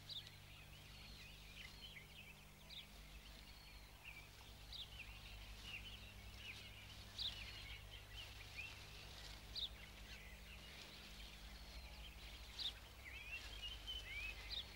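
Faint birdsong: short chirps and slurred whistled notes from several birds, scattered throughout and more frequent near the end, over a steady low hum.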